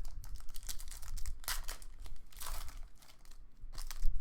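A trading-card pack wrapper crinkling and tearing as it is opened, with cards handled in between. There is a low thump near the end.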